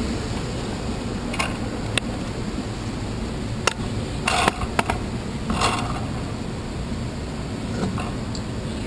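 Bicycle rolling along a sidewalk, heard through a handlebar-mounted GoPro in its housing: a steady low rumble broken by a scatter of sharp clicks and short rattles, with a brief cluster of them around the middle.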